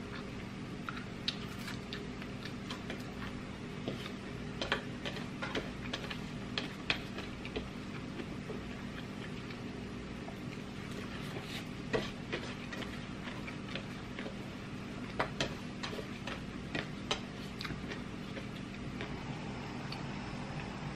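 Close-up eating sounds: scattered small clicks and smacks of chewing and of gloved fingers picking at food on a plate, at an irregular pace, over a steady low hum.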